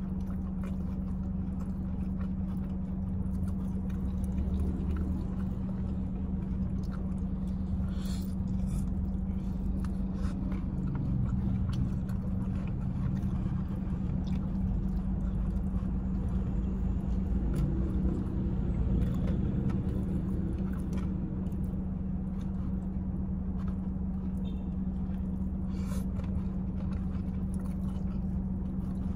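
Steady low hum of a running car heard inside its closed cabin, with a constant droning tone. Over it come faint, scattered sounds of close-up chewing and biting as crispy fried chicken and rice are eaten by hand.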